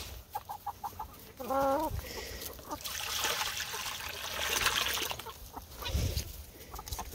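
Chickens clucking: a quick run of short clucks, then one drawn-out wavering call about a second and a half in. A few seconds of rustling follow in the middle, with a couple of low thumps near the end.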